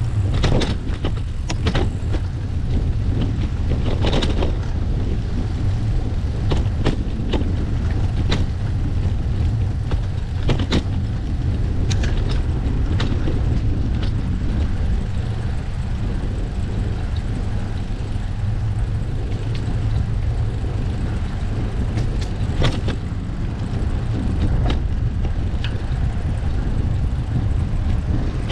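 Wind rumbling on the microphone of a bicycle-mounted camera during the ride, with scattered clicks and knocks throughout.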